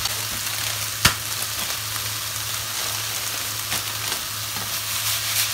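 Thinly sliced beef, onion, carrot and leek sizzling steadily in a nonstick frying pan as they are stir-fried, with one sharp tap about a second in.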